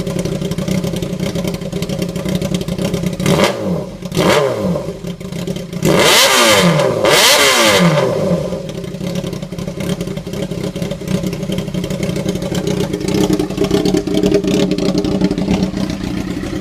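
Straight-piped Yamaha R6 inline-four engine idling, blipped briefly twice, then revved up hard twice in quick succession, each rev falling back to a steady idle.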